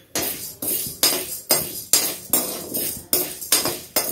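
Metal spatula scraping and stirring sago pearls around the bottom of a metal kadai, about two and a half strokes a second, with the pearls clinking against the pan as they roast in a little ghee.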